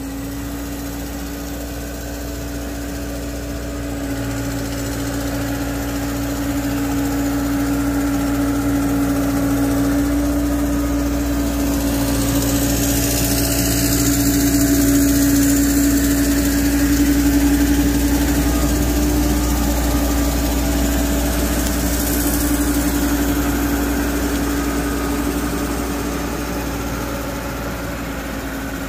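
Diesel engine of a telehandler running steadily. It grows louder as the machine comes close in the middle and fades as it drives away.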